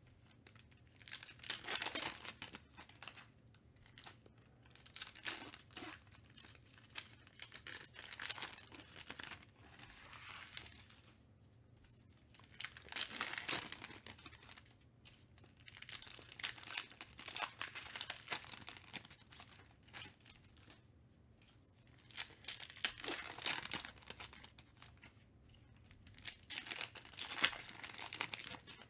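Trading card pack wrappers being torn open and crinkled by hand, in repeated bursts of tearing and crackling with short pauses between packs.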